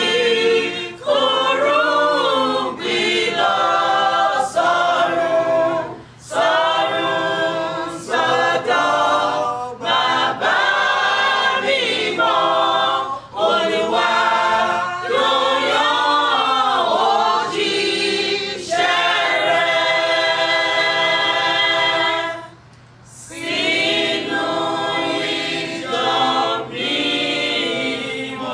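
Mixed choir of women and men singing a cappella, in sung phrases separated by short breaths, with a brief pause about two-thirds of the way through before they sing on.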